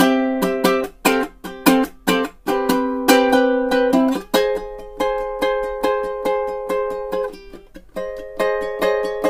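Background music of a strummed string instrument, playing a rhythmic strum pattern with chord changes about four seconds in and again near the end.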